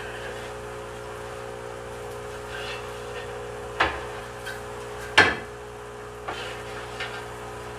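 Heavy glass aquarium lid panels knocking sharply against the tank rim as they are set in place, two loud knocks a little over a second apart, then a couple of lighter taps, over a steady electrical hum.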